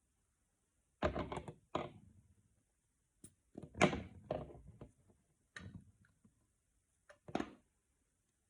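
Plastic bottles and containers being handled and set down: a few separate knocks and thuds with quiet gaps between them.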